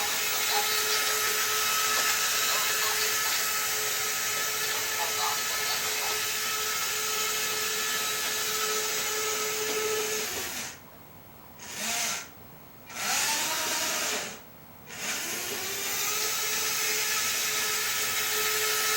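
Electric drive motor of a toy Mark VII monorail playset under a Team Losi electronic speed control, running at high speed with a steady whine. About halfway through it cuts out three times in quick succession, then spins back up with a rising whine.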